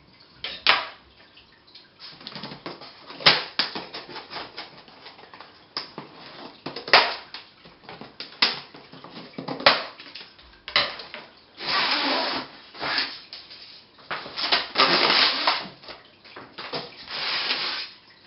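Plastic packing straps being cut and pulled off a cardboard shipping box: a run of sharp snaps and clicks, with a few noisy rustling stretches of about a second each.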